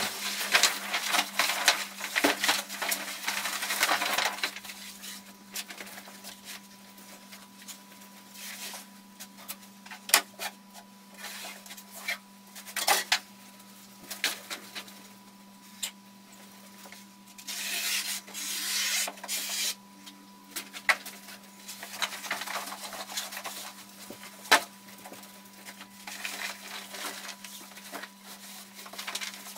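Sail fabric being handled and worked on a wooden workbench: stretches of cloth rustling and sliding, the longest near the start and again a little past the middle, with scattered sharp knocks and clicks. A steady faint hum runs underneath.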